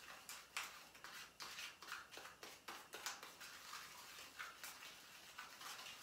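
Spoon beating a thick paste of baking soda, honey and lemon juice in a small cup: faint, quick, irregular clicks and scrapes of the spoon against the cup, several a second.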